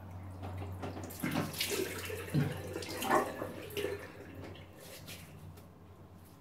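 Water splashed by hand onto the face from a sink basin, rinsing off after a wet shave, in a series of uneven splashes that die away after about four seconds.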